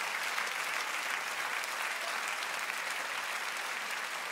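Concert audience applauding and cheering steadily, a dense crackle of many hands clapping.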